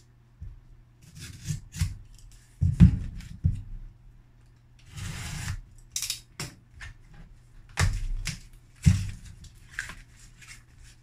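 A small cardboard box being opened with a blade: tape being cut and the cardboard flaps knocking and scraping. The knocks come at irregular intervals, loudest about three, eight and nine seconds in, with a short scraping hiss about five seconds in.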